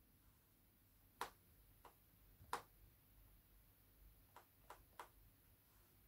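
Faint fingertip taps on a tablet's touchscreen: about six short clicks spread irregularly over near silence.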